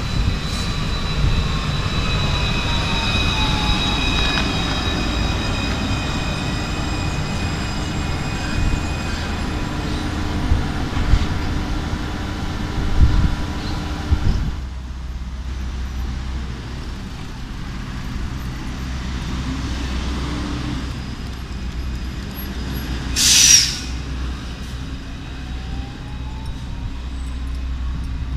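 Alstom Citadis 302 low-floor tram running with its electric traction whine, several steady tones and one falling in pitch as the tram slows, over a low rumble of wheels and road traffic. About halfway through the sound cuts to another stop, with steady traffic rumble, a short loud hiss about two-thirds of the way in, and a rising motor whine near the end.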